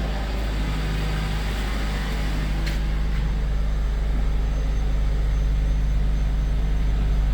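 Nissan Sentra engine idling steadily, running again now that a new fuel pump and pigtail connector have restored fuel pressure and cured its crank-but-no-start fault. A faint click sounds partway through.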